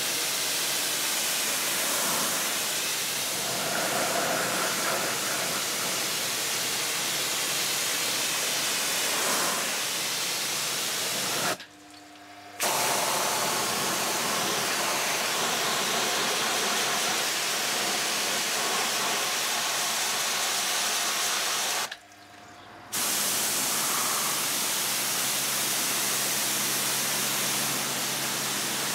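A Kranzle K7 pressure washer's jet sprays water onto car bodywork with a steady hiss, rinsing diluted all-purpose cleaner and loosened grime and moss out of the trim and crevices. The spray stops briefly twice, for about a second each time.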